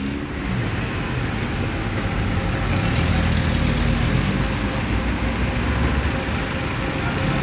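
Street traffic: car engines passing close by and a double-decker coach's diesel engine running as it pulls out, a steady low rumble that grows a little louder about two seconds in.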